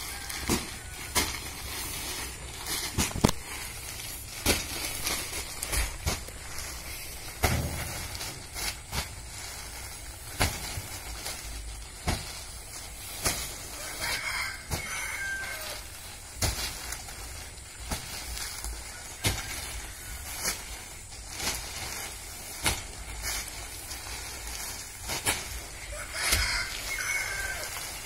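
Heavy sacks of shrimp feed thumping down one after another as they are unloaded and stacked, with a rooster crowing twice, about halfway and again near the end.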